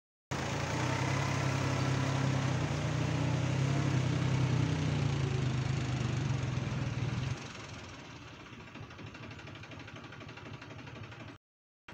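New Holland 4710 tractor's three-cylinder diesel engine running steadily under load while pulling a rotary tiller through flooded mud. The engine sound drops abruptly to a fainter level about seven seconds in and cuts out briefly near the end.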